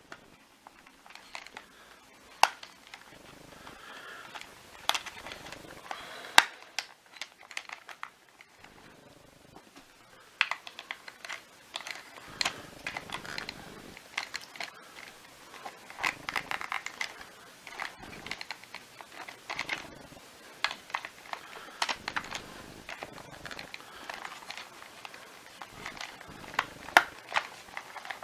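Hands working on a Miele Triflex HX1 vacuum floor head being taken apart: an irregular string of sharp clicks, taps and rattles of plastic parts, with rustling handling noise between, busier in the second half.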